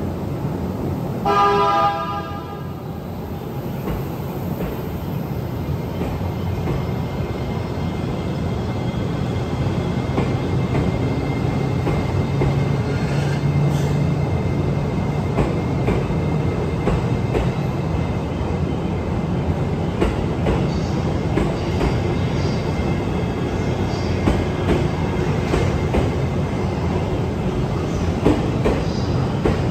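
E653 series electric train departing: a short horn blast about a second in, then the running noise and wheel clatter of the passing cars building gradually as the train gathers speed.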